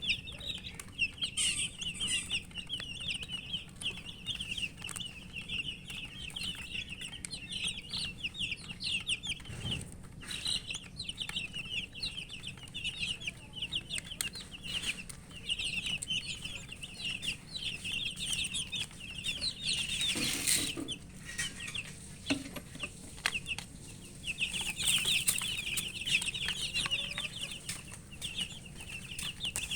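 A group of domestic chicks peeping continuously, many short high chirps overlapping, with a few brief lulls and a short louder noise about twenty seconds in.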